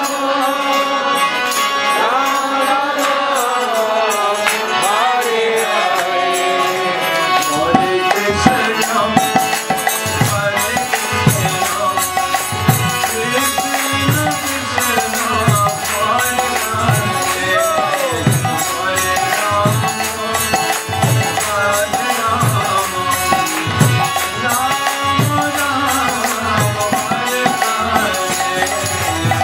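Devotional bhajan: a man sings a slow chant over steady harmonium chords. About seven seconds in, a drum joins with a regular beat, and a light metallic ticking keeps time.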